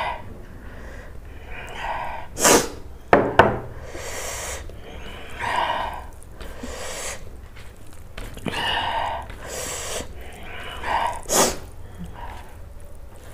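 Fingers mixing basmati rice with curry on a plate, making repeated short wet squishing sounds, with a few sharp clicks of dishes knocking together.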